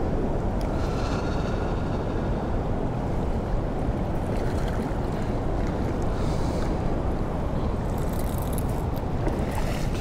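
Steady rush of wind buffeting the microphone over the flow of a wide, choppy river.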